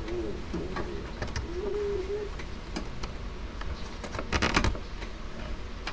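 Small plastic clicks and rattles as the fuel line's quick connector is pushed onto a Honda Click 150's fuel pump and its slide lock worked, with a cluster of sharper clicks about four and a half seconds in. A low wavering tone sounds in the first two seconds over a steady low rumble.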